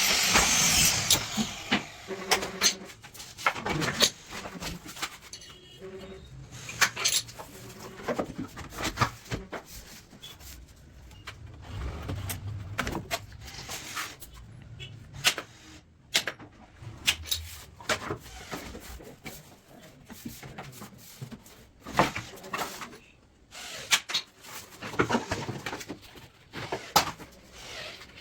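Scattered knocks, taps and rubbing from a sheet of mica laminate being handled and test-fitted against plywood kitchen cabinet frames, with a stretch of loud scraping in the first second or so.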